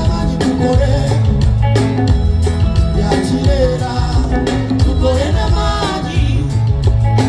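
A live band playing an upbeat song during a sound check, with a sung vocal over a heavy bass line and steady drum beat.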